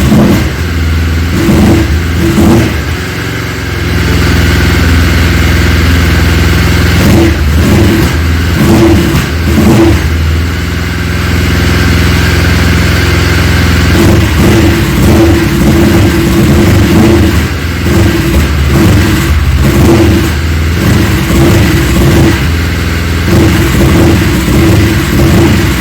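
Yamaha Phazer snowmobile engine running with the throttle worked by hand, held for a while at a raised speed and otherwise stuttering and surging unevenly instead of revving up cleanly. This is the symptom of the throttle-safety (TORS) system cutting in, with its throttle microswitch out of action.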